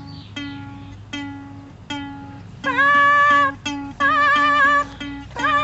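Ukulele played as a song: single plucked notes at first. About two and a half seconds in, a loud wavering melody line joins over a steady rhythm of short low notes.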